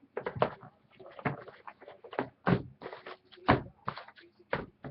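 A sealed box of hockey cards and its packs being handled and opened, making a run of sharp, irregular cardboard and wrapper clicks and knocks.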